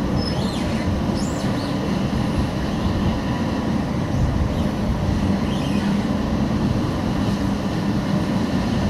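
Tram running along street track, heard from inside the passenger saloon: a steady rumble of wheels on rail with a low motor hum and a few faint higher whines.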